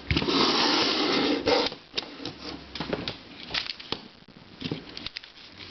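Small plastic puzzles being handled and moved: a loud rustling scrape for about a second and a half, then a run of light plastic clicks and taps.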